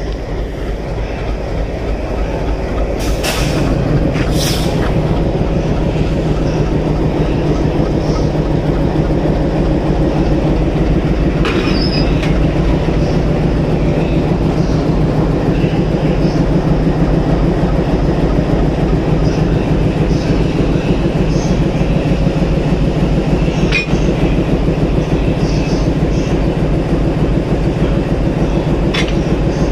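WDM-class diesel locomotive engine idling with a steady low throb, growing louder over the first few seconds. A few sharp metallic clanks come through as the coupling between locomotive and coach is being worked.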